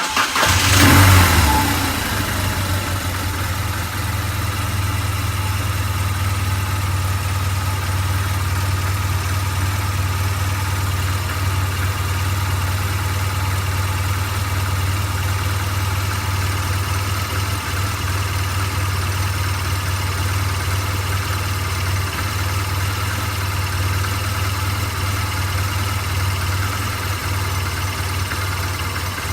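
2008 BMW R1200GS Adventure's boxer-twin engine restarted hot: it catches right at the start and then idles steadily. Warm, it is in the state in which it idles rough and then dies, a fault the owner suspects is heat related.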